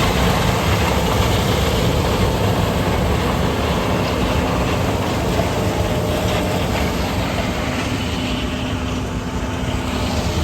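Heavy farm machinery engine running steadily under load, with a dense, even rumble and mechanical clatter.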